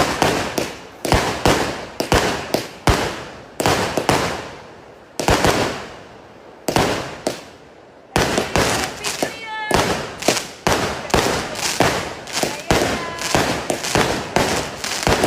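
Machine-gun firecrackers going off as a series of loud, sharp bangs. They come irregularly at first and die down for a couple of seconds. About eight seconds in they start again as a rapid, even volley of about three bangs a second.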